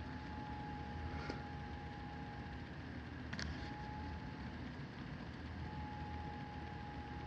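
Steady low background noise with a faint, thin tone that comes and goes, and two light clicks, about a second in and at about three and a half seconds.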